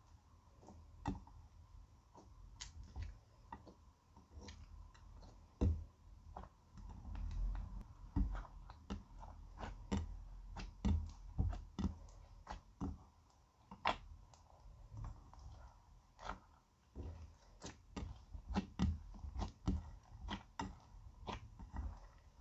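Clear slime being kneaded and folded by hand as gold glitter and crushed makeup highlighter are worked in. It gives irregular sticky clicks and small pops, several a second, over soft low squelches.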